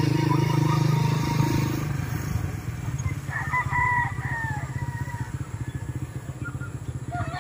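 Motorcycle engine running steadily at cruising speed, with a fast, even pulse. A rooster crows once, about three seconds in, over the engine.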